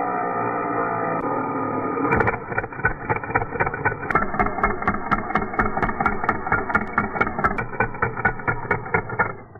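Power tool motor running with a steady whine, joined about two seconds in by fast, regular clicking, about four clicks a second, until it winds down near the end.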